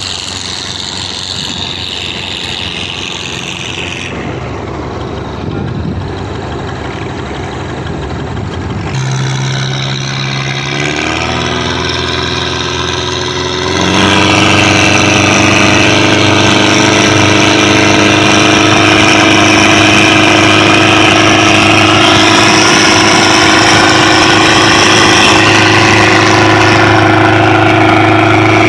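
Pompong longboat engines running at speed over rushing water. About 14 seconds in the sound becomes much louder and steadier: the inboard engine of a large pompong, heard from on board, running hard through its tall exhaust pipe while racing.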